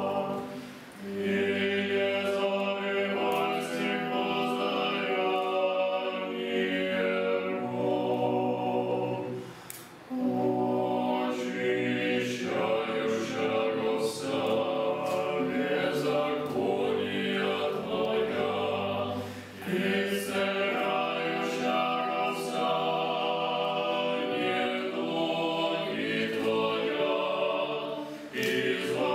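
Background music: a choir singing slow phrases of held notes, pausing briefly about every nine seconds.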